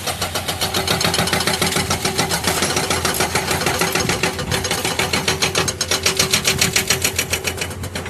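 Komatsu JTHB210 hydraulic breaker on a Komatsu PC210 excavator hammering rock in rapid, steady blows, several a second. The excavator's diesel engine runs underneath.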